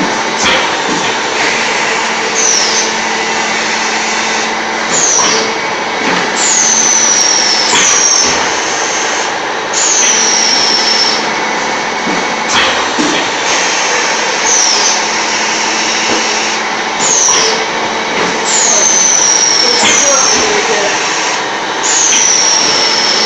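Terrazzo floor tile making machine running, a loud, steady mechanical noise with a faint hum. Over it comes a short, high squeal that falls in pitch, repeating about every two seconds.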